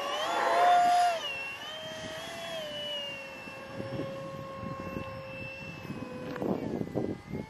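A 64 mm electric ducted fan on a foam RC jet whines at high power as the plane climbs away after a short takeoff. Its pitch rises and it is loudest about a second in, then it holds steady and eases slightly. Low rumbling buffets come in near the end.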